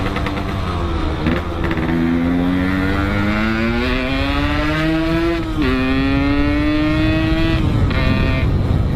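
Suzuki Shogun motorcycle's engine accelerating hard through the gears, its freshly fitted L2 Super clutch plates biting. The revs climb, drop sharply at an upshift about a second in and again about five and a half seconds in, climb again, and the throttle eases off near the end. Wind rumbles low on the microphone throughout.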